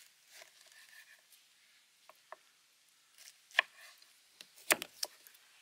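Kitchen knife cutting through pineapple on a wooden chopping board: a handful of sharp knocks as the blade meets the board, the two loudest in the second half.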